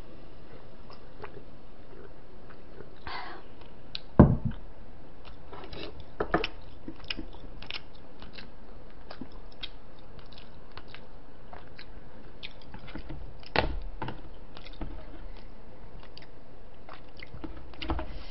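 A person chewing and biting braised chicken, with many small mouth clicks. Sharp knocks stand out about four seconds in and again near fourteen seconds.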